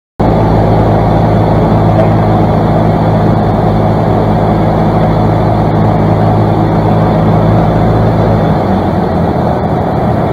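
Single-engine piston airplane's engine and propeller running steadily, heard from inside the cockpit; the deep drone starts suddenly and its low note changes about eight and a half seconds in.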